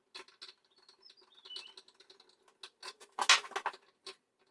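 Electrical outlet box being handled and worked back into the wall opening: a scatter of small clicks, taps and scrapes, with the loudest cluster of knocks about three seconds in.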